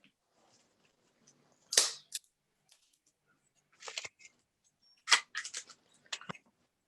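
Paper cupcake liners being separated and pushed onto a paper rope, giving a few short, sharp crackles and snaps with quiet gaps between them.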